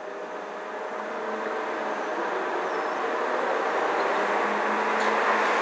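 Road vehicle drawing near, its tyre and road noise growing steadily louder, with a faint steady hum underneath.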